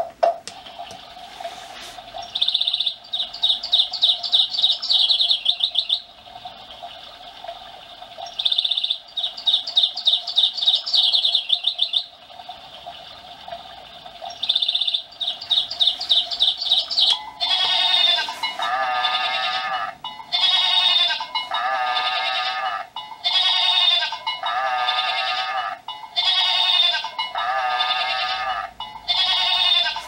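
Seiko Pyxis NR445W alarm clock playing its nature-sound alarms through its small speaker. For the first half, short bursts of trilling birdsong repeat over a steady faint background. From about halfway on, a bleating goat call repeats about every two and a half seconds.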